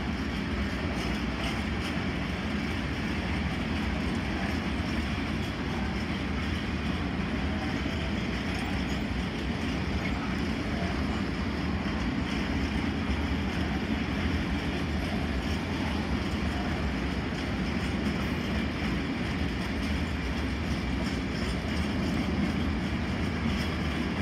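A freight train of covered sliding-wall wagons rolling steadily past, a continuous rumble of steel wheels on rail.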